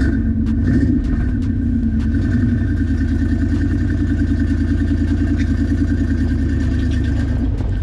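Jeep CJ-7's engine running steadily under way, with a faint steady whine above it.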